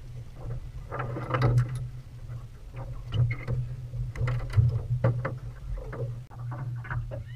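Scattered knocks, clicks and rattles as a freshly caught catfish is unhooked and handled in a small jon boat, over a steady low hum.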